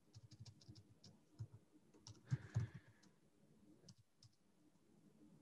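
Faint typing on a computer keyboard: irregular runs of soft key clicks that thin out and stop about four seconds in.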